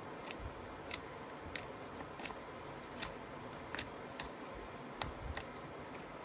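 A deck of oracle cards being overhand-shuffled by hand: a run of sharp card snaps and slaps at uneven gaps, roughly two a second, as packets of cards drop from one hand into the other.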